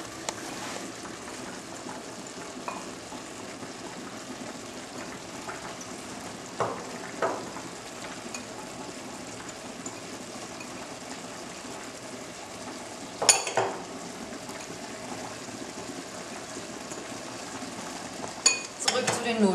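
Minced meat frying with a steady sizzle in a stainless steel pot as chopped onion and diced bell pepper are added and stirred in. A few clinks and knocks of utensils on the pot break through, the loudest about two-thirds of the way in.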